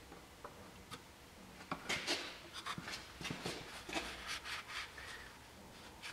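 Paper shop towel rustling and rubbing against a metal oil dipstick as it is wiped, in a quick run of scratchy rubs from about two seconds in, with a couple of light clicks before.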